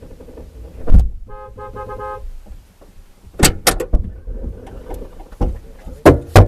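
Car horn tooting in a quick run of short beeps about a second in, over a low vehicle rumble. Several loud thumps are heard through the rest.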